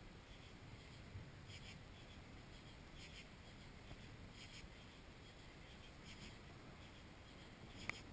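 Near silence of a night outdoors: faint insects chirping in short repeated pulses, roughly one every second, over a low hiss, with a single sharp click near the end.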